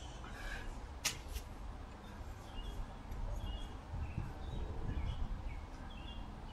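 Small birds chirping in short, scattered calls over a low background rumble, with two sharp clicks about a second in.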